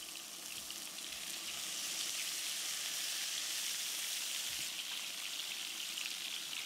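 Buttered salmon fillets sizzling on the hot grill plate of an electric hot pot and grill combo, a steady hiss with small crackles that grows louder about two seconds in.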